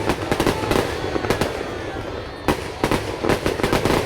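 Fireworks display: rapid, irregular bangs and crackles from bursting shells. They come thick in the first second or so, thin out briefly around the middle, and come thick again from about two and a half seconds in.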